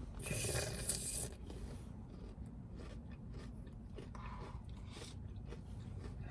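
Eating sounds close to the microphone as frozen yogurt with toppings is chewed. A louder crunchy burst comes in the first second, then quieter chewing and small clicks.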